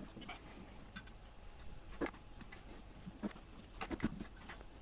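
Scattered light clicks and taps of hardware being handled as a CPU cooler is tightened down onto a motherboard: a handful of short, sharp ticks, the clearest about two seconds in and around four seconds.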